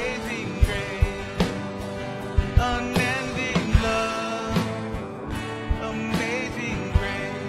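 Live worship band music: electric and acoustic guitars over drum hits, with a wavering melody line on top.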